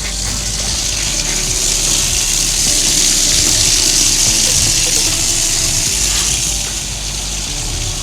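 Water running from a frost-free yard hydrant through a garden hose: a steady rushing hiss that swells over the first few seconds and eases a little about six seconds in.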